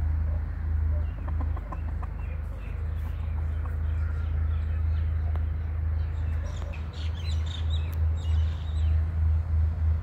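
Chickens clucking with short, high bird chirps, a flurry of them about seven to nine seconds in, over a steady low rumble that begins to pulse near the end.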